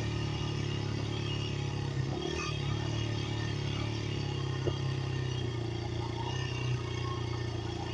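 Dirt bike engine running steadily while the bike rolls along, the engine note holding level with no revving.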